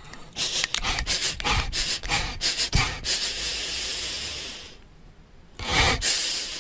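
Pug sniffing close to the microphone: a run of quick, short sniffs and snuffles, then a steadier stretch of breath noise about three seconds in, and another short burst of sniffing near the end.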